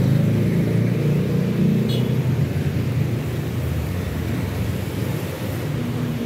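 Motor vehicle engine running with a low, steady rumble, and a brief high chirp about two seconds in.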